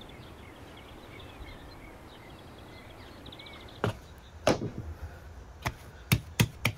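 Faint birds chirping, with a short trill, over quiet outdoor background. From about four seconds in come several sharp knocks and slaps as a stainless-steel bowl of bread dough is handled on a wooden board and hands slap and press the dough.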